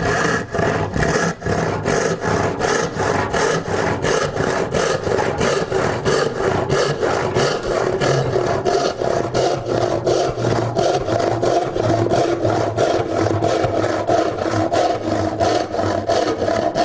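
Heavy-toothed hand rip saw cutting a pine board along the grain, in quick, even strokes, about three a second.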